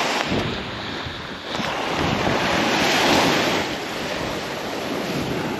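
Small waves breaking and washing up a sandy beach, the hiss of the surf swelling and easing, with wind buffeting the microphone.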